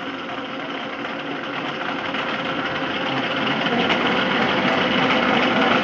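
Large Gorton vertical manual milling machine running, its spindle turning a drill bit that is hand-fed into the steel adapter plate. A steady mechanical running noise that grows gradually louder.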